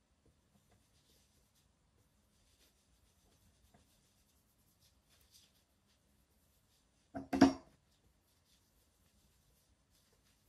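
Faint, intermittent rubbing of a cloth over the glossy leather toe of a shoe being polished, with one short, loud double knock about seven seconds in.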